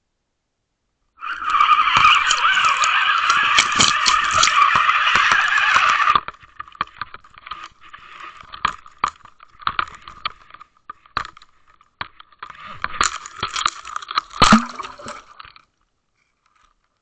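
Rubbing and scraping on the housing of a Waterwolf underwater camera as it is pulled up out of the water and handled: a steady rushing scrape for about five seconds, then scattered knocks and rubs, stopping about a second before the end.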